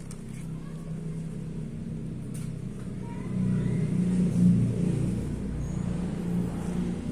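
A motor vehicle's engine running, heard as a steady low hum that swells louder about midway and then eases off.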